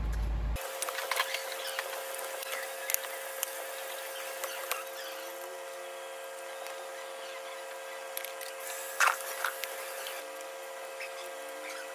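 Scattered light clicks and metallic clinks of hand tools on the parts of a MAN D2866 truck diesel engine being taken apart, over a steady hum. One louder clink comes about nine seconds in.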